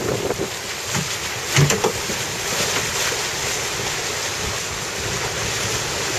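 Water rushing and splashing along the hull of a small sailboat under way, with wind buffeting the microphone. A brief louder knock about one and a half seconds in.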